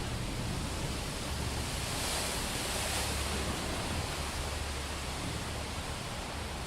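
Heavy summer rain pouring onto a street, a dense steady hiss of falling and running water. About two seconds in it briefly swells louder, with a low rumble underneath.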